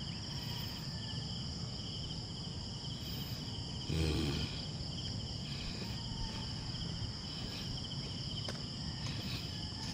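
Insects chirring steadily: a continuous high-pitched buzz with a lower, rapidly pulsing trill beneath it. A brief voice-like sound comes about four seconds in.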